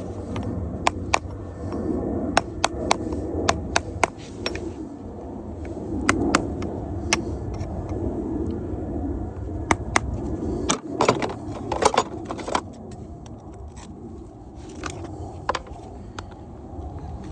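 Farrier pulling a horse's shoe: irregular sharp metallic clicks and clinks of steel tools on the shoe and nails, coming in clusters with a busier run about two-thirds of the way through.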